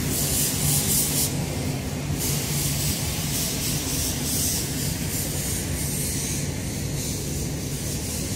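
Truck engine running steadily with a low, even hum, and a hiss that swells and fades several times over it.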